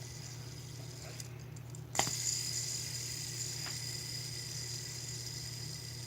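A fidget spinner is flicked with a sharp click about two seconds in, then spins with a faint, high, steady whir that slowly fades. A steady low hum sits underneath.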